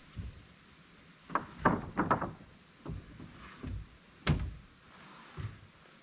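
Freshly milled wooden boards knocking and clattering as they are pulled from a pickup bed and dropped onto a stack: a quick run of several knocks around two seconds in, then single knocks, the loudest a little after four seconds in.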